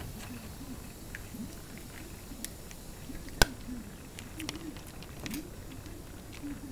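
A Shiba Inu chewing a piece of apple, with scattered crisp crunches. The sharpest crunch comes just past halfway through.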